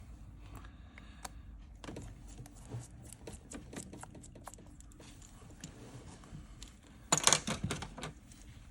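Small repair tools handled on an iPhone and the workbench: scattered light clicks and taps, with a louder flurry of rattling clicks about seven seconds in.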